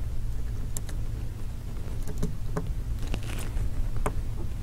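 About five faint, short clicks and taps, scattered and irregular, as fingertips press an iPhone 5's flex-cable connectors down onto their logic-board sockets, over a steady low hum.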